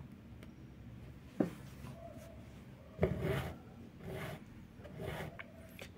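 Needle and embroidery thread worked through fabric stretched in a hoop: a faint tap about a second and a half in, then three short strokes of thread drawn against the cloth.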